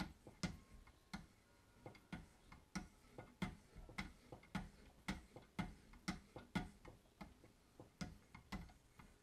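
Abrasive paddles of a Wicked Edge guided sharpener stroked in turn down both sides of a SOG tanto blade clamped in its vise: a quick, even run of short scrapes and clicks, about three a second.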